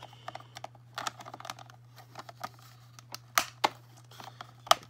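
Hard plastic clicking and tapping as the rear deck of a Monster High Ghoulmobile toy car is handled and lifted open, with a few louder snaps in the second half.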